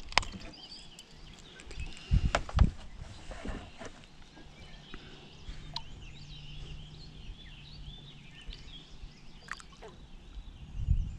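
A few hollow knocks and thumps on a plastic kayak hull about two seconds in, as a caught largemouth bass is handled in the boat. Birds chirp faintly throughout.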